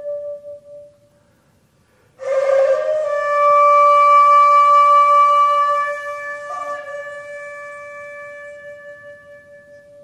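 Solo shakuhachi (Japanese end-blown bamboo flute). A long held note fades away, and after a short pause a new long note begins with a breathy, airy attack. It swells and then slowly dies away, with a brief flick of pitch about midway through.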